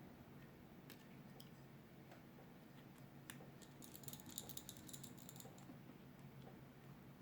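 Near silence with a faint steady hum and a few small faint clicks, then a quick run of light ticks about four to five and a half seconds in: small parts and tools being handled during a phone repair.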